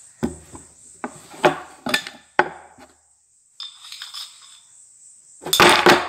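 Small hard objects being handled: a string of sharp clicks and clinks, then a rustle, and near the end a louder rattle as a small white bowl is shaken.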